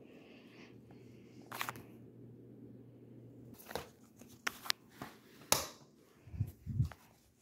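Ceiling fan motor humming steadily, cutting out suddenly about halfway through; then a string of sharp clicks and knocks and two dull thumps near the end.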